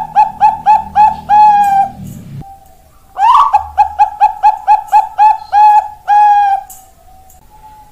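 Bangkok-strain zebra dove (perkutut bangkok) singing: quick staccato coos, about three or four a second, each phrase ending in one longer drawn-out coo. One phrase ends about two seconds in, and a second runs from about three to six and a half seconds.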